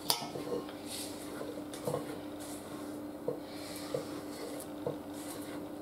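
Silicone spatula scraping and folding batter in a stainless steel mixing bowl, with a few light taps against the bowl, over a steady hum.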